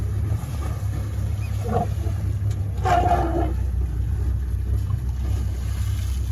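Steady low drone of an idling engine, with a brief pitched cry a little before two seconds and a louder one about three seconds in.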